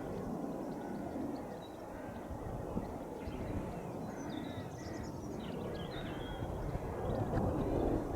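Birds chirping in short, quick calls over a steady low rumble that swells near the end.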